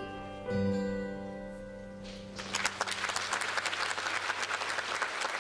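The dance music's closing chord is struck and rings out, fading away, then audience applause breaks out a little over two seconds in and carries on.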